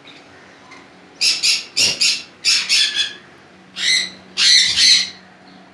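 Conures squawking: about eight short, harsh calls in two quick clusters, starting a little over a second in.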